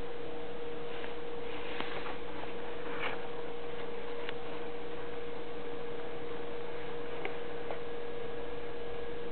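Steady electrical hum at one pitch over a constant hiss, with a few faint rustles in the first few seconds and occasional single soft clicks.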